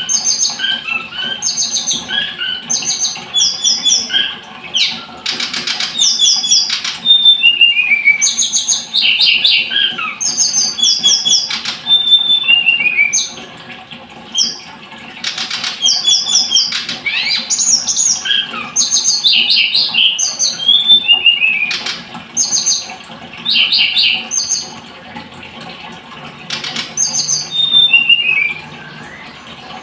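Tledekan gunung songbird singing: quick high chirping phrases and short falling whistles repeated almost without pause, broken by two quieter gaps of a couple of seconds, one midway and one near the end.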